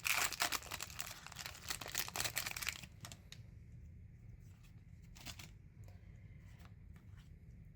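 Foil Pokémon booster-pack wrapper being torn open and crinkled. The crackling is dense for about three seconds, then thins to a few scattered rustles and clicks.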